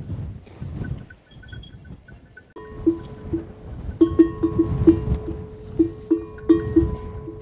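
A large metal bell hanging from a donkey's neck clanks and rings over and over as the animal moves, starting about two and a half seconds in. There is some fainter, higher ringing before it.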